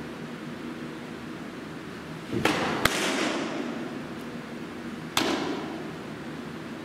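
A fastpitch softball fastball smacks into a catcher's mitt with a sharp pop, echoing in a large indoor hall. A second sharp smack follows about two and a half seconds later.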